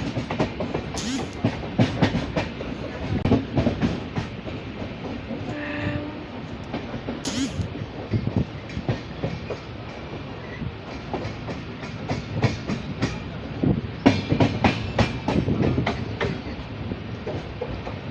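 LHB passenger coaches rolling slowly over points as the train changes tracks: the wheels clatter irregularly over the switch and crossing joints above a steady running rumble. A denser run of clacks comes about 14 seconds in.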